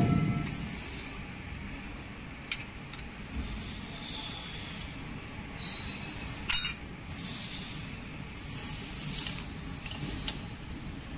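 Hand tool work on the steel cutter block of a wire nail-making machine: an Allen key clinking and scraping on the cutter-holder bolts while the nail cutter is adjusted, with a thump at the start, sharp metal clinks (the loudest about six and a half seconds in) and soft rustling scrapes between them.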